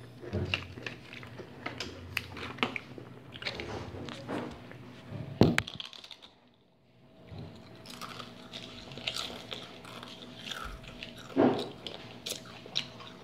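Pringles crisps being bitten and chewed: irregular crunching and crackling close to the microphone, with a sharp knock about five seconds in and a short lull after it.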